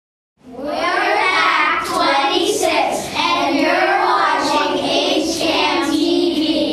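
A group of young boys, Cub Scouts, singing together, starting about half a second in.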